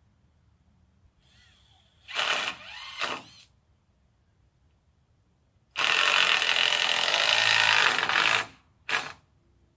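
A handheld power drill driving fasteners into the timber framing: two short runs starting with a rising whine about two seconds in, one long run of nearly three seconds from about six seconds in, and a brief final run near the end.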